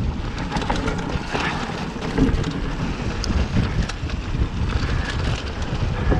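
Wind buffeting an action-camera microphone while a Mongoose Teocali mountain bike rolls fast down a dry dirt and gravel trail, with a steady deep rumble from the tyres and ground and scattered small clicks and rattles from the bike.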